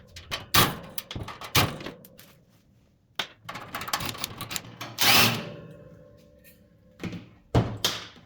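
Metal clicks, clinks and knocks of a nut driver and box fan motor parts being handled and set down on a hard surface. One loud clank about five seconds in rings on briefly, and two more knocks come near the end.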